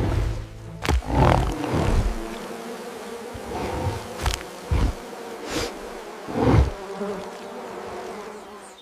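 A steady insect-like buzzing, with about seven short, sudden loud sounds breaking in at irregular intervals through the first two-thirds.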